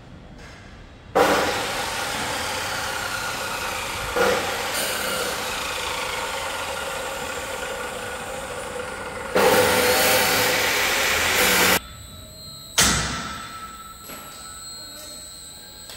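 Machinery running in a metal workshop. A loud, steady grinding-like noise starts suddenly about a second in, gets louder near nine seconds and cuts off abruptly near twelve. A sharp bang follows, then a fainter steady whine.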